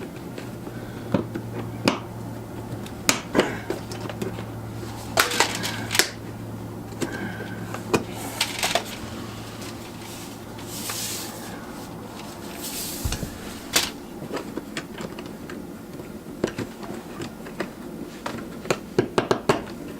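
Clicks, knocks and rattles of hand tools and plastic trim as a car's interior panel, held by snap clips and one bolt, is unbolted and pried loose. A steady low hum underneath stops with a thump about two-thirds of the way through.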